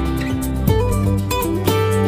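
Instrumental background music with plucked guitar-like strings, the notes changing every half second or so.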